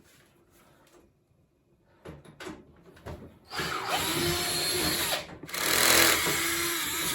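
Cordless power screwdriver running in two bursts, driving out the front panel screws of a washing machine, its motor whine dipping and rising as each screw turns. A few light handling clicks come before it.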